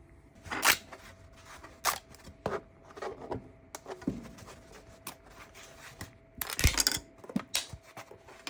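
Hard plastic 3D-printed parts being handled, with scattered clicks and knocks and a busier clatter near the end, over a faint steady hum.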